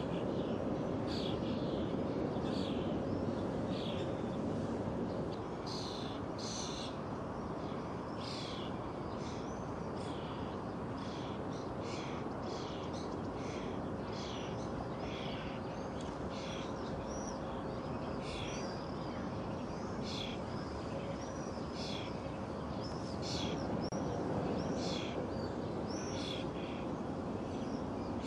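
Small birds chirping over and over, short high calls coming every second or so, over a steady background rush of outdoor noise.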